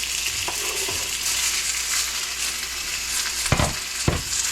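Beef strips frying in a hot pan, a steady sizzle, with two knocks against the pan about three and a half and four seconds in.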